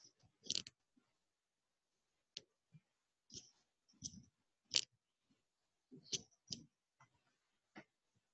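Faint, irregular clicks from a computer's mouse or keys, about eight over several seconds, as the presentation is stepped back through its slides.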